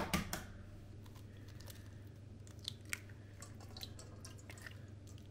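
An egg cracked against a stainless steel mixing bowl right at the start, then faint clicks of eggshell and light drips as the yolk is tipped between the shell halves and the egg white falls into the bowl.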